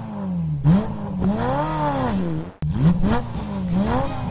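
Car engine sound effect revving up and down over and over, its pitch rising and falling about once a second. It breaks off briefly about two and a half seconds in, then starts again.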